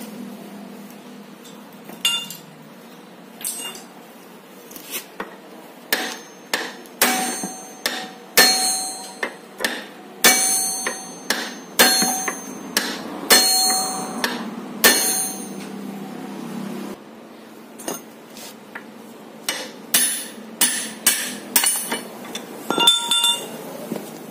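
Hammer blows on a steel rod used as a drift, knocking the old pivot pin out of an LML Vespa's front suspension hub. Sharp, ringing metal-on-metal strikes, about one to two a second, with a pause of a couple of seconds before a last, quicker run of blows near the end.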